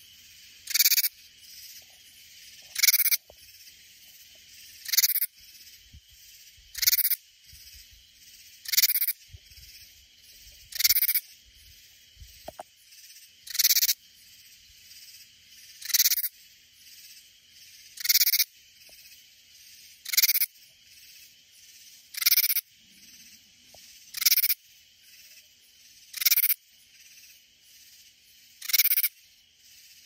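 Katydid singing: a short, loud, high call repeated about every two seconds, over a steady faint high hiss of other insects.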